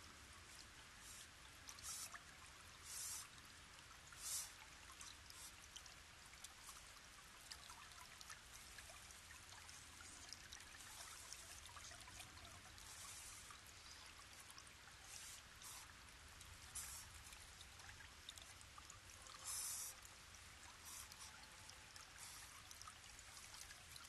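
Faint trickle of running stream water picked up by a trail camera's microphone, a steady hiss with brief louder hissy bursts now and then.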